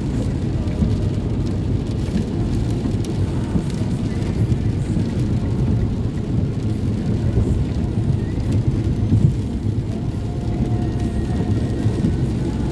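Steady low rumble of road and tyre noise heard inside a car's cabin at freeway speed on a wet road, with the hiss of rain and spray on the car.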